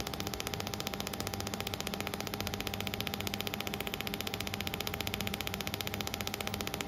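Pulsed mold laser welder firing on stainless steel pipe, a rapid, even train of sharp snapping pulses as each laser shot strikes the weld seam, over a steady low machine hum.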